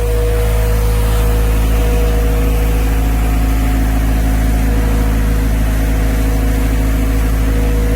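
A machine running steadily: a deep hum with a few steady tones above it.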